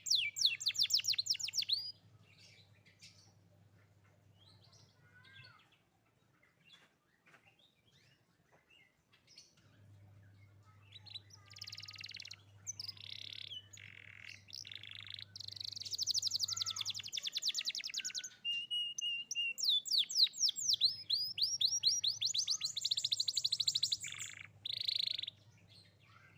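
Domestic canary singing in bursts of fast, rapid-fire trills, with a quieter stretch of faint scattered chirps. The song starts up loud again about ten seconds in, then once more after about twenty seconds.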